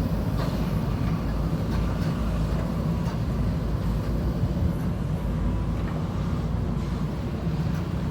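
A JCB backhoe loader's diesel engine running steadily, its sound mostly deep, with a few faint clicks over it.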